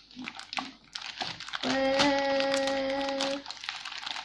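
Scissors snipping through a plastic mailer bag, the plastic crinkling and crackling. In the middle, a steady pitched note is held for nearly two seconds over the crinkling.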